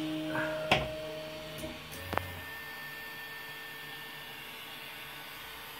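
Prusa i3 MK2S 3D printer's stepper motors whining at a few steady pitches as the axes move at the start of a print job, with a sharp click about a second in and another about two seconds in.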